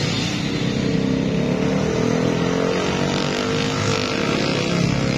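Street traffic of motor scooters and motorcycles passing, a steady engine noise with one engine rising in pitch through the second half as it accelerates.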